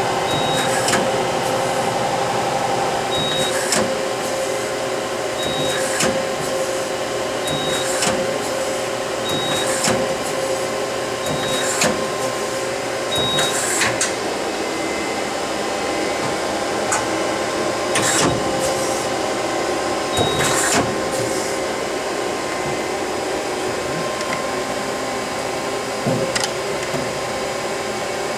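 Steady machine hum with several steady tones. A short high beep repeats about every two seconds through the first half, and there are scattered sharp clanks, the loudest near the middle.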